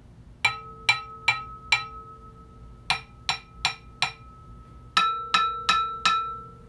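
Sony PS-X800 turntable platters tapped with a wooden stick in three quick runs of four taps each. The first run, on the stock platter, rings on with a sustained metallic tone, showing its resonance, and the last run rings on the same way. In the middle run the ringing is weaker, as from the stiffened, constrained-layer-damped modified platter.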